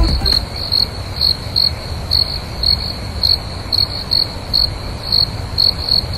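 Insects trilling: a steady high-pitched buzz with irregular louder pulses about three times a second, over a low steady hiss.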